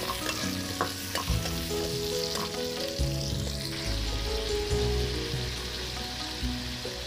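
Chopped tomatoes and onions sizzling in hot oil in an aluminium kadai. A spatula stirs and clicks against the pan a few times in the first seconds.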